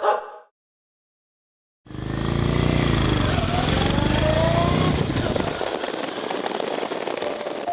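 Motorcycle engine running on the road with rushing wind noise, cutting in suddenly about two seconds in. Its pitch rises through the middle as it accelerates, then holds steadier.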